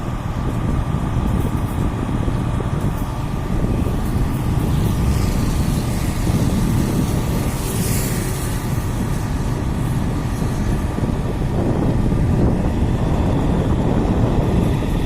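Freight train running: a steady heavy rumble with a faint steady hum, and a brief hiss about eight seconds in.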